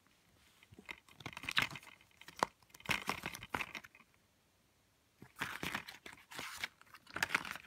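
Hands handling a plastic Blu-ray case and its paper booklet: the plastic clicks and the paper rustles. The handling comes in two spells with a quiet pause of about a second in the middle.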